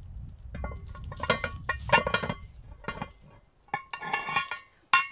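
Cast iron lid being set onto a cast iron pan with a metal lid lifter: metal clinking and clattering in a run of strikes about a second in, more clinks later, and a sharp clank near the end.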